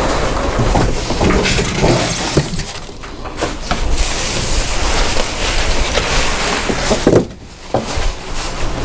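Packing being stripped from a new machine: plastic wrap crinkling and rustling and foam packing blocks being handled, a steady crackle with small knocks, with a brief lull about seven seconds in.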